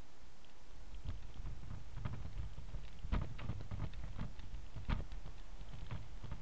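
Bicycle getting under way over a bumpy brick path, its frame and mounted camera rattling with irregular knocks and clicks over a low rumble; the loudest knock comes about three seconds in.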